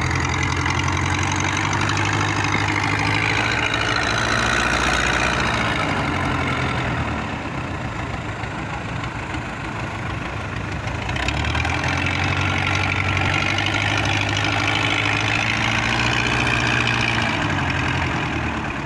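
Wooden fishing boat's inboard engine running steadily, easing off about seven seconds in and picking up again around eleven seconds, over a hiss of wind and waves.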